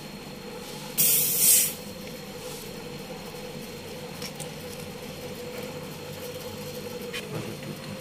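A short, loud hiss of R600 refrigerant gas escaping at the brass gauge-valve fitting on the copper charging line, lasting under a second about a second in. It comes over a steady low hum.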